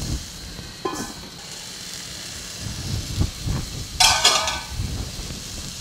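Chopped tomatoes, onions and ground spices sizzling steadily in a nonstick kadai, with a light knock just under a second in and a short clatter about four seconds in.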